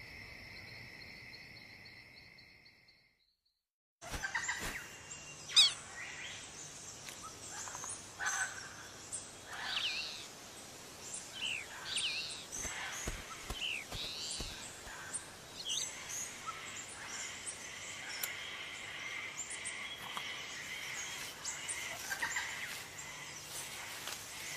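A steady pulsing trill fades out to dead silence about three seconds in. An outdoor nature ambience then cuts in, with birds chirping in short rising-and-falling notes, scattered sharp clicks (the loudest a little after five seconds) and a steady high drone from about halfway.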